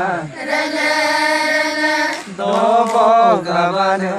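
Group of women singing a Mising folk song together, unaccompanied, in two long held phrases with a short breath between them about halfway through.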